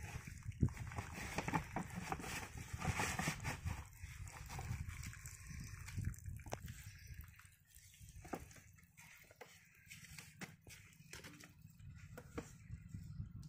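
Scattered knocks and rustling as a flat canvas delivery hose is handled at a water pump's outlet pipe, with some water sloshing. The pump's engine is not running.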